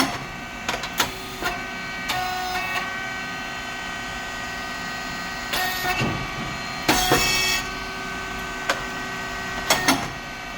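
Hydraulic rice cake popping machine (SYP5804T) running: a steady machine hum with scattered sharp clicks and knocks. Two short hissing bursts come about six and seven seconds in.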